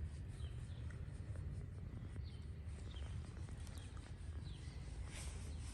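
Faint, brief bird chirps about once a second over a low, steady background rumble.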